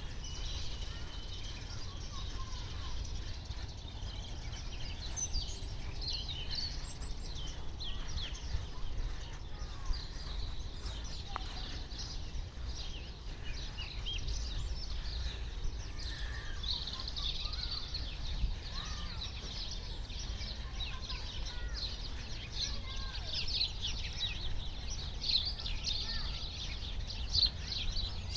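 Small songbirds chirping and twittering, with many quick overlapping chirps that grow busier in the second half, over a steady low rumble of background noise.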